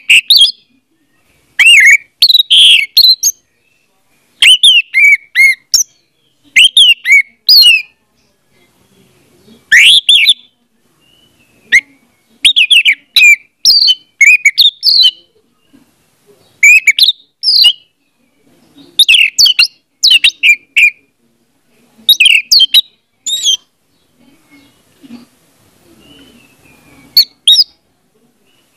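Orange-headed thrush (anis merah) singing: short phrases of quick, twisting whistled notes, repeated every second or two with brief pauses between, and a longer pause near the end.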